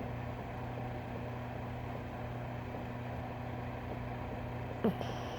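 A steady low hum, with one short squeak rising in pitch near the end.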